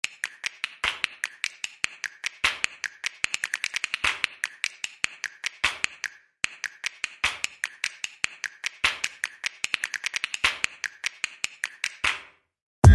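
Rhythmic clicking percussion: a dense run of sharp snap-like clicks with a stronger accent about every 1.6 seconds, breaking off briefly midway. It stops dead just before heavy electronic music kicks in at the very end.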